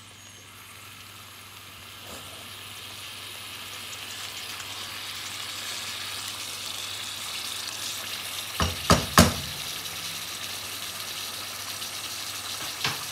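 Raw chicken pieces, spice paste and whole spices sizzling in oil in a nonstick pot, the sizzle growing steadily louder as the pot heats, while a wooden spatula stirs. About nine seconds in come three sharp knocks, and one more near the end.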